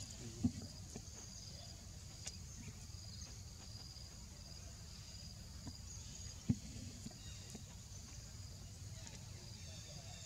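Steady outdoor insect chorus, high chirping that pulses on and off, over a low rumble, with two short soft thumps about half a second in and about six and a half seconds in.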